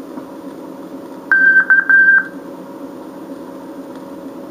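Morse code practice signal played from a 1959 code-course vinyl record: a steady high-pitched tone keyed as dah-dit-dah, the letter K, about a second in, over record surface hiss and a faint hum.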